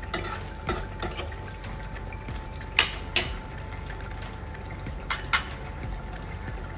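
Metal spoon stirring thick curry in a kadai, scraping and clinking against the pan, with two sharp clinks a little under three seconds in and two more about five seconds in.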